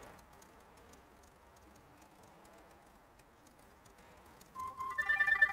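Faint clicking of typing on a laptop keyboard, then about a second before the end a phone starts ringing, a ringtone of steady electronic tones at several pitches that is much louder than the typing.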